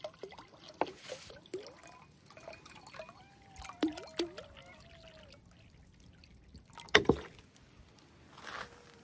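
Water poured from a plastic bottle into a bowl, trickling and splashing with bubbly glugs. A single sharp knock about seven seconds in is the loudest sound.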